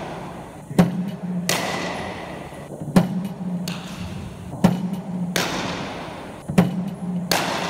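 Cricket bat striking balls fed by a bowling machine: sharp knocks about every couple of seconds, each ringing on in a large hall.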